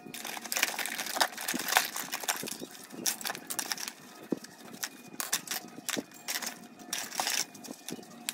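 Brush scrubbing small metal parts in a plastic tub of cleaning liquid, in irregular strokes, with the parts clinking against each other and the liquid splashing.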